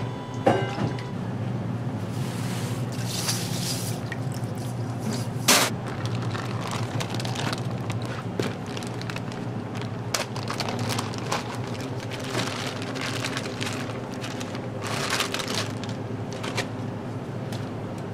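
Plastic bag crinkling and rustling as a block of pork is pulled out of it, with a few sharp clicks and knocks, over a steady low hum.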